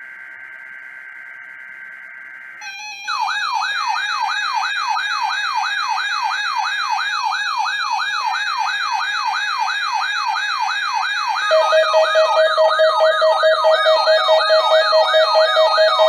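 A NOAA Weather Radio broadcast sending its SAME digital alert header, a harsh screeching data tone, then about three seconds in several weather alert radios go off together: a fast warbling siren-like tone about three sweeps a second, mixed with higher warbles and beeps, joined near the end by a loud pulsing beep.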